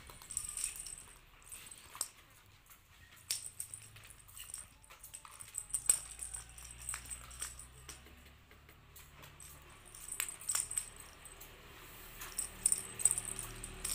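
A cat wand toy's blue ball jingling and rattling in short bursts as a kitten bats and grabs at it, with small clicks on the tile floor.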